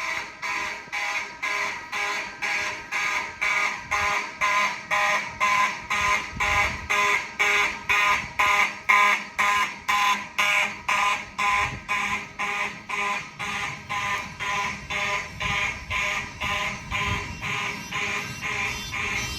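Simplex 2903S fire alarm horn sounding in march time, pulsing on and off about twice a second.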